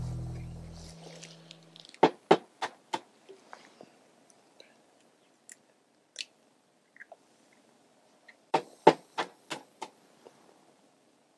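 Sharp clicks and knocks of eggs and a saucepan being handled on a portable gas stove. About four come in quick succession around two seconds in, single taps follow, and a second cluster of about five comes near the end.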